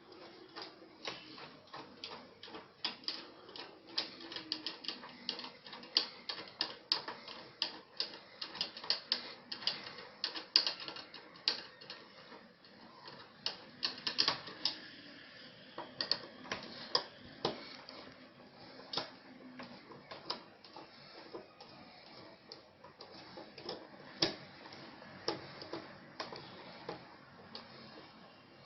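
Irregular light clicks and taps of small hardware being handled, such as lock parts and hand tools. They come thick and fast for the first dozen seconds, then thin out to scattered clicks.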